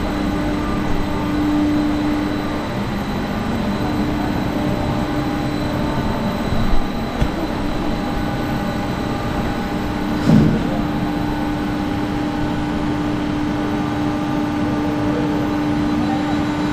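Steady machine hum with a constant low drone and a few fainter steady tones, with a brief louder burst of noise about ten seconds in.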